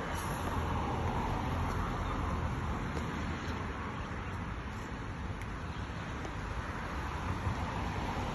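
Steady road traffic noise from cars driving along the road, swelling as one passes about a second in and again near the end.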